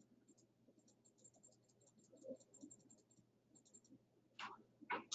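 Near silence: faint room tone with faint scattered clicks, and a short sound near the end.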